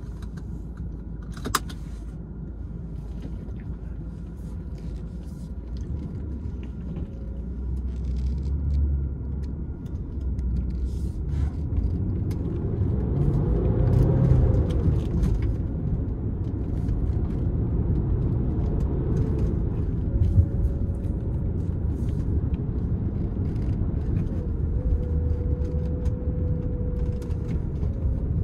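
2001 Audi 2.7T twin-turbo V6 heard from inside the cabin, pulling under acceleration over a low road rumble. The revs climb and the engine sound grows to its loudest about 14 seconds in, then drops back as the revs fall with a gear change and runs steadier at lower revs.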